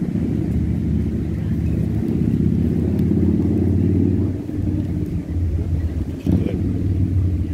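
A motor vehicle engine drones low and steadily close by, easing off a little about four seconds in. A short knock comes about six seconds in.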